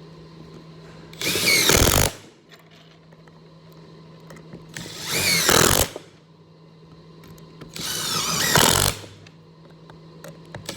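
Makita XDT13 18-volt brushless cordless impact driver running 3-inch star-bit wood screws into and out of stacked 2x4 lumber. There are three bursts of about a second each, with a fourth starting at the very end. Each burst starts with the motor's pitch rising under the rapid hammering rattle of the impact mechanism.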